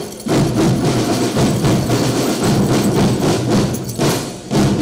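Marching band drumline of snare and bass drums playing a fast cadence, with a short drop in level about four seconds in before the drums come back in full.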